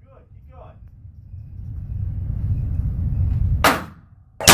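Two gunshots in an indoor range: a sharp crack about three and a half seconds in, then a louder blast right at the end that rings on in the range's echo. A low rumble builds before them.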